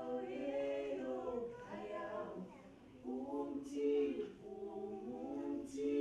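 A small group of voices singing a cappella in harmony, in long held phrases with a short break about halfway through.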